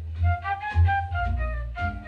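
Recorded jazz-pop music playing through a small Zicoroop TS Bluetooth speaker: an instrumental passage with a high melody line over a heavy bass line.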